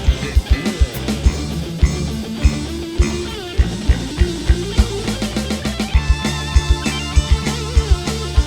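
Live dangdut koplo band playing an instrumental break: regular drum beats and bass under a lead melody that slides up and down in pitch.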